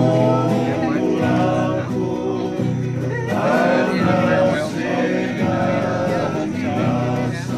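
A group of voices singing a song together, with men's voices prominent.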